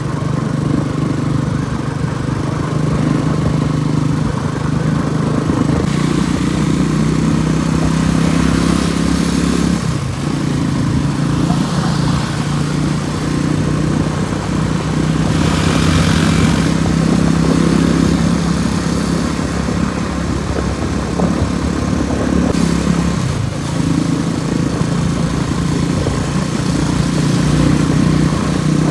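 Motorcycle engine running steadily under way, over a steady rushing noise; the engine note dips briefly twice, about ten seconds in and again a little past twenty seconds, as if for a throttle change or gear shift.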